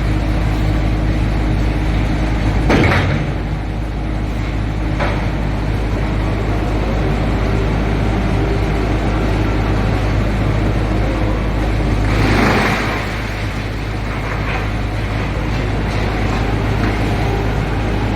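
SHD2113 industrial wood chipper running with a steady, loud low drone. Two short louder bursts break over it, about three seconds in and again about twelve seconds in.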